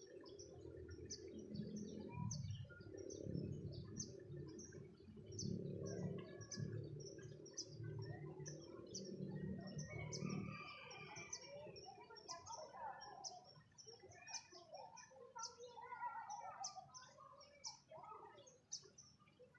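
Birds chirping: a short high chirp repeated about twice a second, joined about halfway through by warbling calls, over a low rumble.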